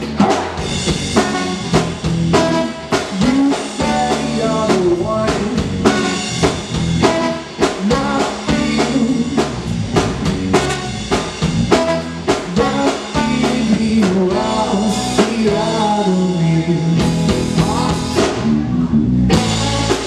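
Live rock band playing an instrumental passage: drum kit, electric guitar, bass guitar and trombone.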